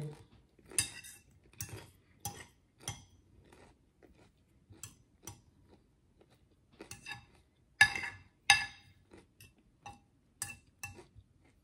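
Cutlery tapping and clinking against a dish while eating: an irregular string of sharp taps, each with a short ring, the loudest two about eight seconds in.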